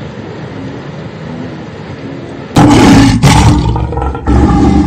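African penguins braying: a loud, sudden donkey-like call in two long parts, starting about halfway through after a steady background hiss.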